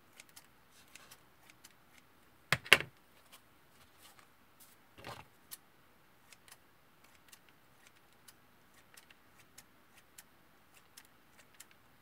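Scissors snipping the tops of leek seedlings: a string of small, sharp clicks, with a louder double click about two and a half seconds in and a short rustle of the leaves near the middle.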